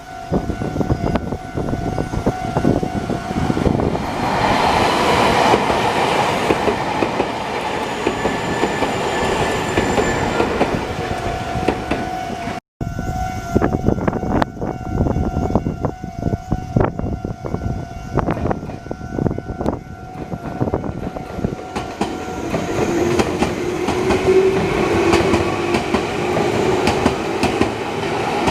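Meitetsu trains passing over a level crossing: wheels clattering over the rail joints with the running noise of the train, and the crossing's warning alarm ringing steadily. The sound drops out for a moment about 13 seconds in.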